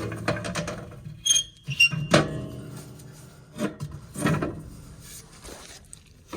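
Sheet-metal parts of an old gas-fired boiler being fitted back together: a few knocks and clanks, some with a short metallic ring, the loudest about two seconds in, then scraping as pieces slide into place.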